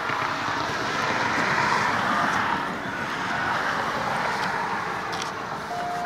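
RSH-10 "Thunderbeam" rotating outdoor warning siren sounding its alert tone. It grows louder over the first second or two, then swells and fades as the horn turns toward and away.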